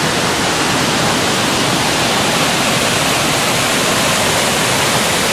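Steady rush of a waterfall close by, its water pouring down in an even, loud roar of noise.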